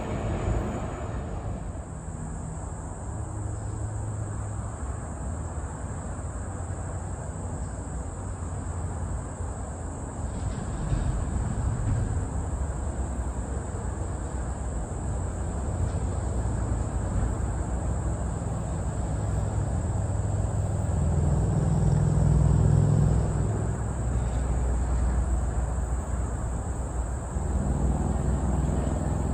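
Low engine rumble of heavy vehicles, rising and falling and loudest a little past two-thirds of the way through, with a steady high-pitched buzz above it.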